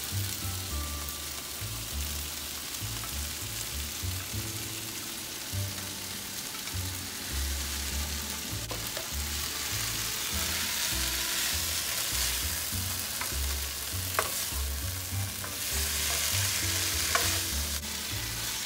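Sliced bell peppers and carrot strips sizzling in hot oil in a nonstick pan as they are stirred with a spatula. The sizzle grows louder in the second half, with a few light knocks of the spatula against the pan.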